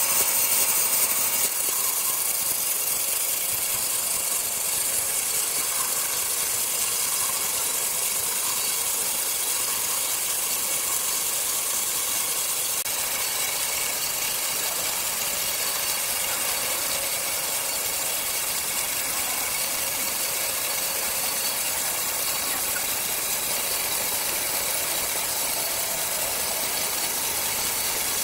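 Circular saw machine running steadily: an even, unbroken high-pitched hiss and whine with no pauses.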